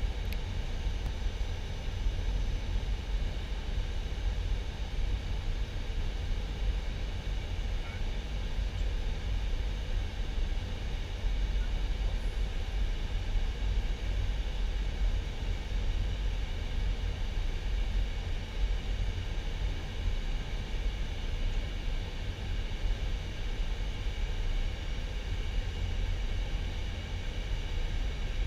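Steady flight-deck noise of an Airbus A320 on final approach: an even rush of air with a deep, fluttering low rumble and faint steady higher tones, unchanging throughout.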